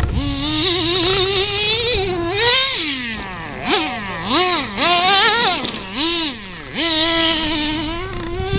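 Small RC car's motor whining, its pitch rising slowly at first, then swooping up and down several times in quick succession as the throttle is worked, and holding steady near the end.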